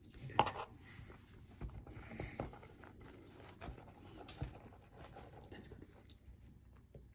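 Soft scraping and a few light knocks of a measuring cup scooping cocoa powder, with one sharper knock about half a second in.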